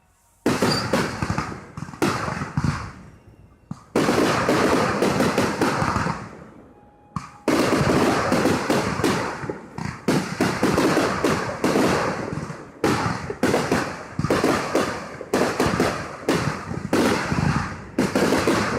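Fireworks going off in rapid volleys of crackling bangs. A dense barrage starts about half a second in, eases off briefly around the middle, then resumes as a continuous string of bangs.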